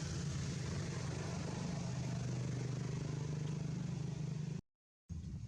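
A steady low mechanical hum over a haze of background noise, cutting off abruptly about four and a half seconds in.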